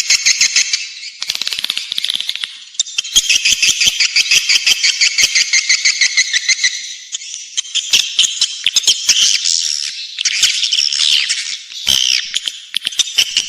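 Swiftlet calls: dense, rapid chattering twitters and clicking trills in a continuous chorus with brief dips. This is a swiftlet lure recording, played to draw swiftlets into a nesting house.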